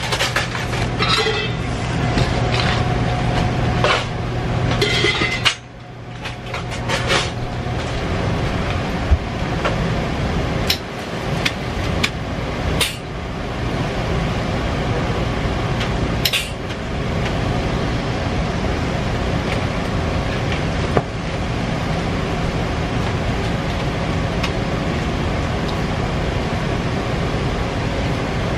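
Dishes and utensils clattering and knocking at a stainless-steel sink, scattered sharp clinks over a steady background of machinery noise.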